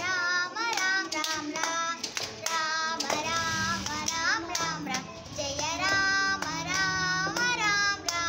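A young girl singing a devotional song on the name of Rama, in a high voice. She sings short phrases with wavering, bending held notes.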